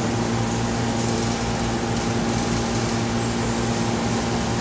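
Steady machine hum with an even hiss over it, unchanging throughout.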